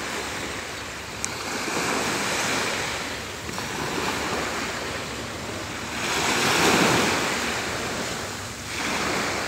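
Small sea waves washing onto a sandy beach in a steady rush that swells and fades, loudest about two-thirds of the way through, with wind on the microphone.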